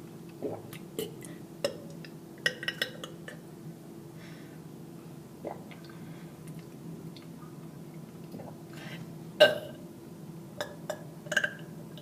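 A person's short, clipped burps, made by swallowing air and cutting each burp off: several small ones in the first three seconds, the loudest about nine and a half seconds in, and a quick few near the end.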